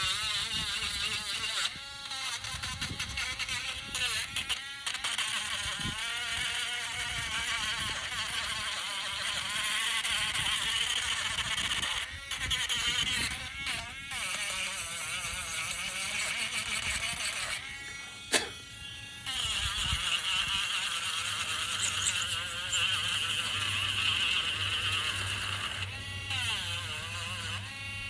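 Small electric sander running against wood, its motor whine wavering up and down in pitch and stopping briefly several times. A single sharp knock sounds during one of the pauses, about two-thirds of the way through.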